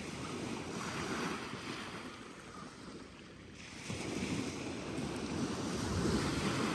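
Small waves breaking and washing up a gravel beach, with wind buffeting the microphone. The wash eases about two seconds in and builds again about four seconds in.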